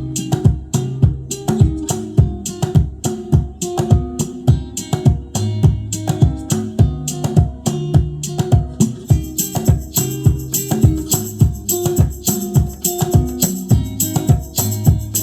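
Music with plucked guitar, bass and a steady drum beat, played through a car speaker under test. A bright tambourine-like shimmer joins about nine seconds in.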